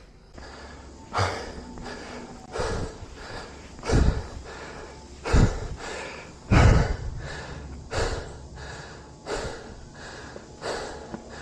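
A person breathing hard in a steady rhythm, about one breath every second and a half, the breaths puffing onto the microphone.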